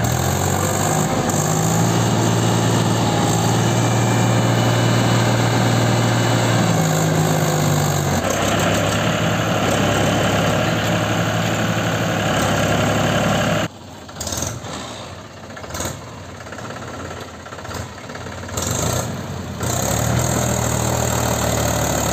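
Mahindra 265 DI tractor's diesel engine running hard as it tries to pull a loaded trolley out of mud, its note climbing slightly about seven seconds in. Past the middle the sound drops suddenly much quieter for about six seconds, then the engine comes back loud near the end.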